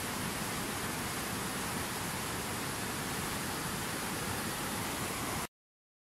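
Steady rush of white water from a fast mountain river running over rocks, which cuts off suddenly about five and a half seconds in.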